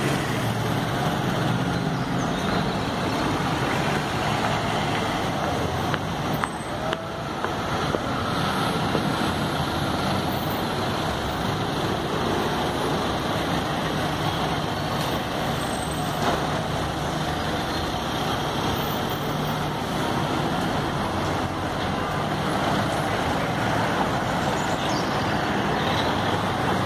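Steady street traffic: cars and other motor vehicles driving past, a continuous mix of engine and tyre noise.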